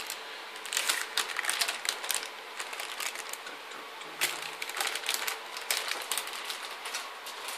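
Crinkling and crackling of a metallic anti-static bag being handled and lifted off the desk with a motherboard on it, a busy run of sharp crackles with brief pauses.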